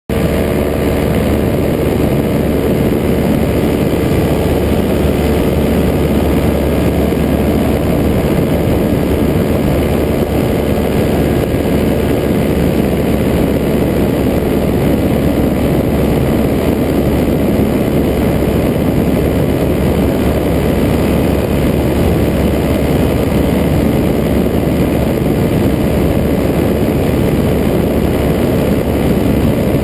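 Paramotor engine and propeller running at a steady pitch, mixed with heavy wind rush on the microphone in flight.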